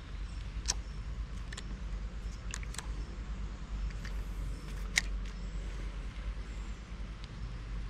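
Lure being retrieved on a spinning reel: a steady low rumble with several sharp clicks, the loudest about five seconds in.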